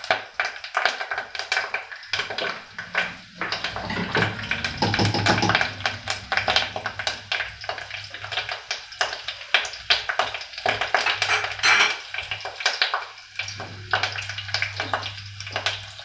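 Green chillies, cumin and curry leaves spluttering in hot oil in a steel pot: a dense, irregular crackling and sizzling of an Indian tempering (phodni).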